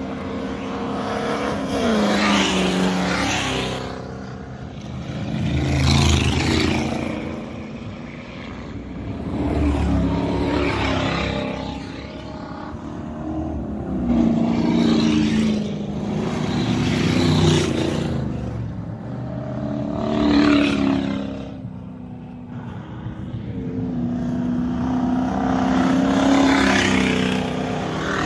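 Ford 302 V8 race cars passing one after another at speed, each engine note swelling up and fading away as it goes by, several times over.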